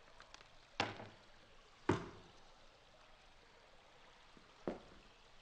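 Three sharp, separate knocks, about a second in, about two seconds in and near the end, over a faint steady hiss.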